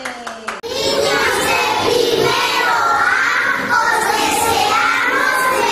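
A group of children singing together, after a few hand claps in the first half-second.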